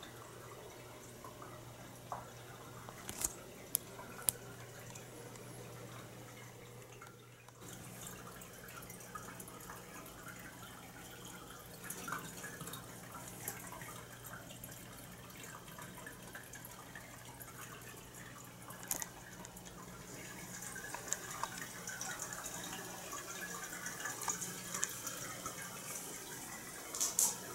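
Quiet room tone with a steady low hum and a scattered handful of faint sharp clicks and taps. A light crackling hiss builds over the last several seconds.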